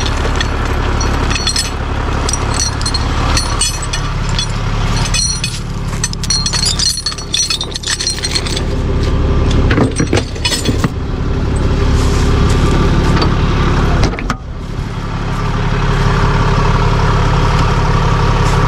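Heavy-duty tow truck engine idling steadily beside the microphone. For the first ten seconds or so there are metal clinks and rattles from recovery gear being handled and stowed in the truck's side toolbox; after that the clinking stops and only the idle remains.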